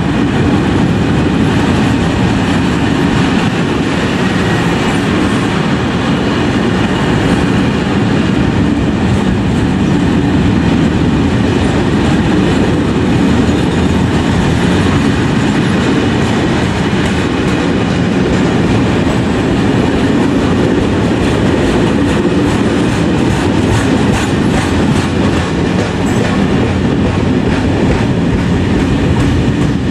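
A long freight train of open high-sided Eanos wagons passes at close range, its steel wheels running loud and steady on the rails. Repeated clacks of the wheels over rail joints run through it.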